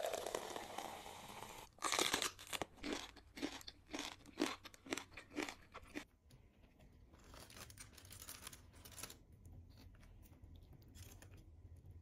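Loud, close crunching bites and chewing for about six seconds, then a quieter stretch with short crackling and tearing sounds as a whole roasted chicken in foil is pulled apart by hand.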